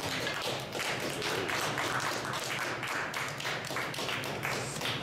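A small group of people clapping, an uneven patter of hand claps, applauding a just-finished blown glass piece.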